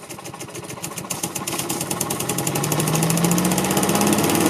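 Briggs & Stratton 6.5 HP single-cylinder engine on a Craftsman yard vacuum running after a start, speeding up and getting louder, with its pitch rising to full speed about four seconds in. It runs on a newly replaced ignition coil (armature magneto).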